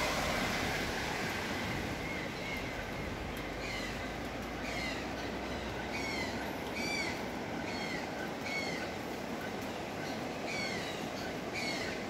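A bird calling over and over, a short hooked note about once or twice a second, starting about two seconds in, over a steady rushing hiss.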